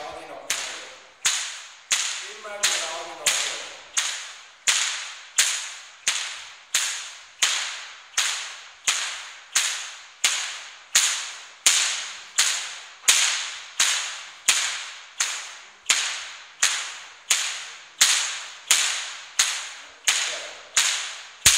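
A Goaßl, the Bavarian short-handled cracking whip, cracked in a steady, even rhythm of about three sharp cracks every two seconds, each fading quickly.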